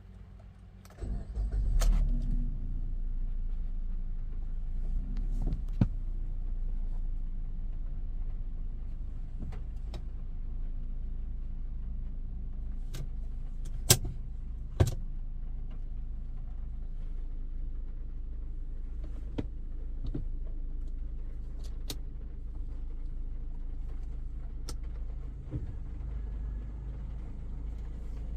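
Low, steady rumble of a Maruti Suzuki Brezza's freshly overhauled 1.5-litre four-cylinder petrol engine heard from inside the car, starting about a second in, with scattered sharp clicks and taps.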